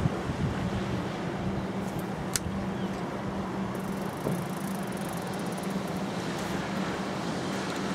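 Steady wind and surf noise on a sea wall with a constant low engine-like drone underneath, and one sharp click about two and a half seconds in.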